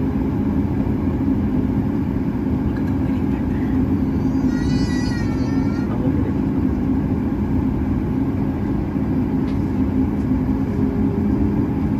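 Cabin noise of a Boeing 737 MAX 8 taxiing, its CFM LEAP-1B turbofans at taxi power: a steady low hum with a few held tones. About four and a half seconds in, a brief high wavering squeal rises over it for about a second and a half.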